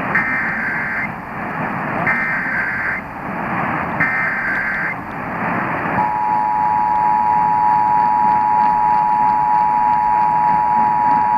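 Emergency Alert System test: three one-second bursts of SAME header data tones, about a second apart, then the two-tone EAS attention signal (853 and 960 Hz). The attention signal starts about six seconds in and holds steady. A steady hiss runs underneath.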